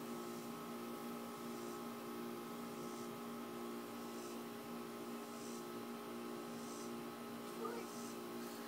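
Steady hum made of several fixed tones over faint hiss.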